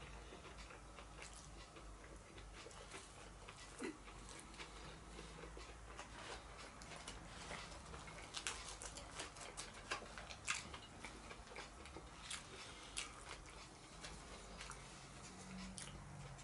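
Faint eating sounds: chewing, with small clicks and scrapes of a metal fork picking at roast vegetables in a cardboard takeaway box. The clicks are busiest from about eight to thirteen seconds in.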